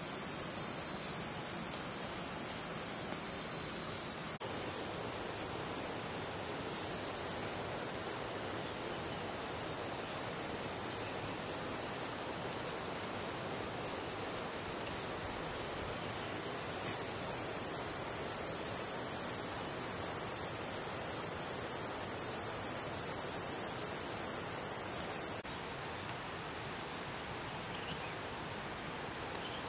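Insects, likely field crickets, trilling in a steady, continuous high-pitched chorus over a faint outdoor hiss. The trill wavers in pitch twice at first and shifts slightly about four seconds in and again near the end.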